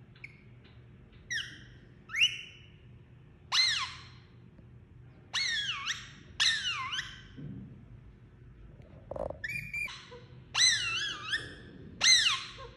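Indian ringneck parakeet giving a series of short, shrill calls and whistles in separate bursts, each sweeping up and down in pitch, with the loudest near the start and near the end.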